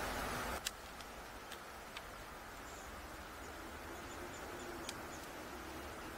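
Quiet waterside outdoor ambience. A hiss cuts off about half a second in, followed by a few faint, scattered clicks and brief, faint high chirps of birds or insects.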